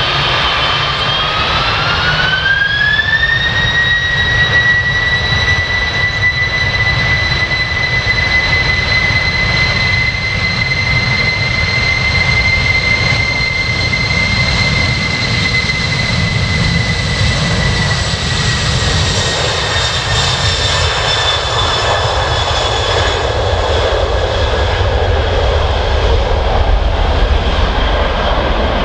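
The four turbofan engines of a Boeing 747-400F freighter at take-off thrust. Their whine rises over the first few seconds as the engines spool up, then holds steady over a rumble while the jet rolls down the runway. The whine drops a little in pitch as the jet passes, and the rumble grows as it lifts off near the end.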